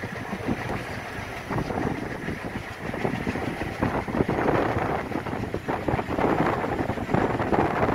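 Express train running, heard from on board: a steady rumble with frequent irregular knocks and rattles, and wind on the microphone. It grows slowly louder.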